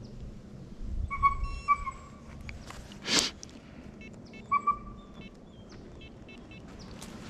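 Hunting hounds baying: two drawn-out bays about a second in and a shorter one near five seconds, with a short burst of rustling noise around three seconds.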